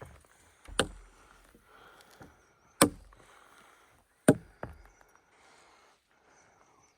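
Three sharp knocks about a second and a half apart, with a fainter one just after the third.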